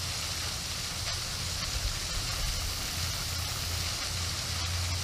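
Steady outdoor background noise: an even hiss over a low rumble, with a few faint clicks.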